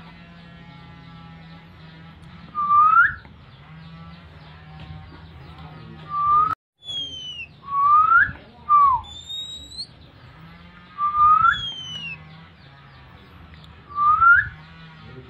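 Oriental magpie-robin (kacer) in breeding condition whistling its call: a loud, clear rising whistle about every two to three seconds, with a few shorter falling whistles and soft twittering in between.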